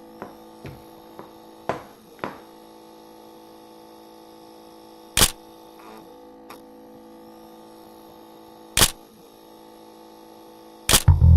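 A steady hum with a few small clicks in the first couple of seconds, then sharp, louder clicks about five, nine and eleven seconds in.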